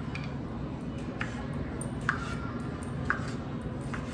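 Kitchen knife slicing cherry tomatoes on a wooden cutting board: a light tap about once a second as the blade goes through and meets the board, over a steady low hum.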